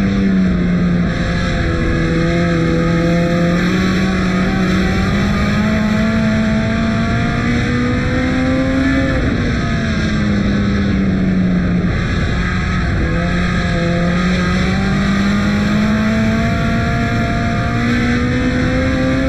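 A compact race car's engine heard from inside the car, running hard on a dirt oval. The revs climb slowly down each straight and drop sharply for the turns, about nine seconds in and again near the end, with steady tyre and wind noise underneath.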